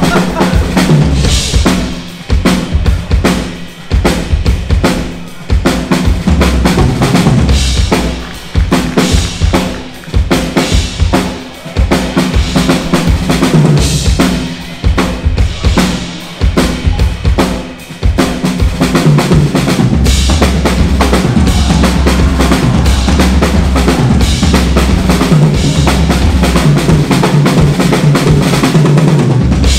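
Live stage percussion performance: drums played in a fast rhythm broken by short pauses, then from about two-thirds of the way through a steady, continuous passage with bass drum underneath.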